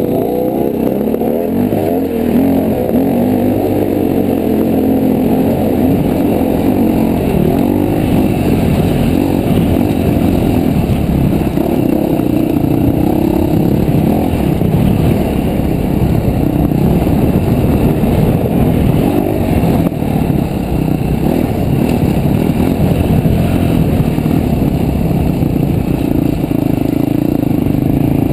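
KTM dirt bike engine riding over slickrock, heard close up from the rider's own bike. The throttle goes on and off continually, so the engine note keeps rising and falling.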